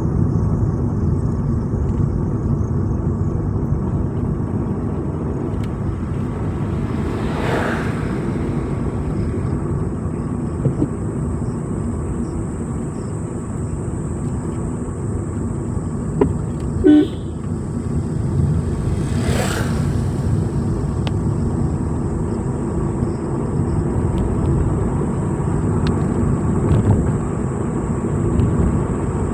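Vehicle driving along a road: steady engine and road rumble. Two brief whooshes are heard about a third and two-thirds of the way through, and a short sharp sound comes just before the second.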